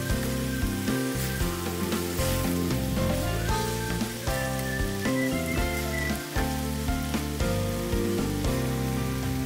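Food sizzling as it fries in a pan, with background music playing over it.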